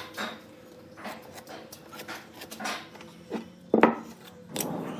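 Wood blocks and a paper template handled on a wooden workbench: light knocks and rubbing, with one sharper knock of wood on wood a little before four seconds in.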